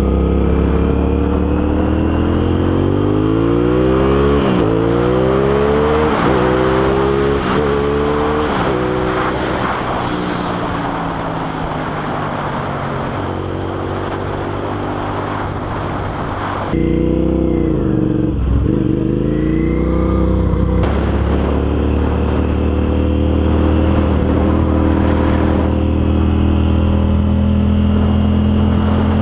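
Sport motorcycle engine accelerating hard through several gears, its pitch climbing and dropping back with each upshift, then running steadily at speed. The revs dip and recover briefly past the middle, and wind rushes over the microphone throughout.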